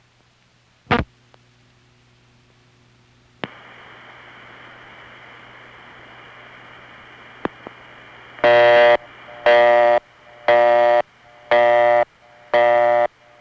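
Recorded 1970s Bell System telephone line on a long-distance call: a sharp click, then line hiss with a faint high tone after a second click as the call goes out, then a busy signal pulsing on and off about once a second, five times.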